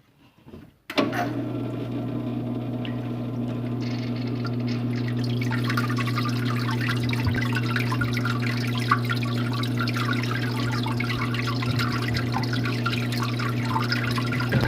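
Water falling and splashing steadily, starting suddenly about a second in, with a splashy texture that grows over the next few seconds above a steady low hum.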